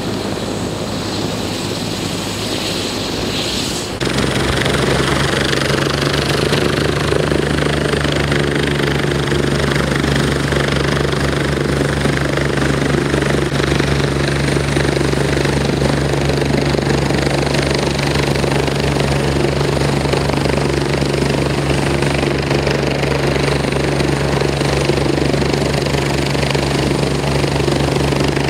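Helicopter running with its rotor chopping fast and evenly over a steady engine hum and a faint high whine. The sound changes abruptly about four seconds in, then holds steady.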